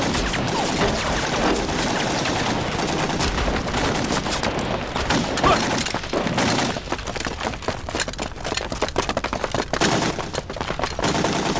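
Heavy gunfire in a battle: many rifle and machine-gun shots overlapping in a dense volley. The shots come further apart in the second half.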